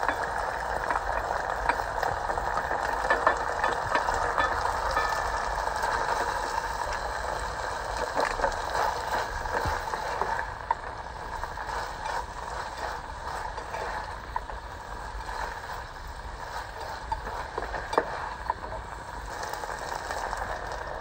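Marinated chicken sizzling and crackling in hot oil in a pan, loudest at first and settling down after about ten seconds, with occasional sharp clicks.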